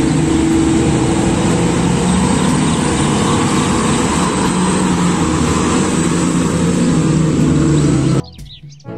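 Heavy diesel engine of a large mining haul truck running steadily under load as it drives past, with a wide rushing noise over the engine's low hum; the sound cuts off suddenly about eight seconds in.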